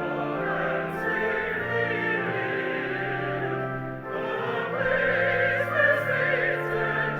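Church choir and congregation singing a hymn together in long held notes.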